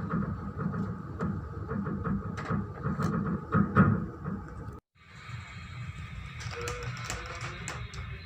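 Onboard noise of a small ship working through heavy seas: a steady low rumble with scattered knocks and rattles. The sound cuts out for a moment about five seconds in, then resumes with more hiss.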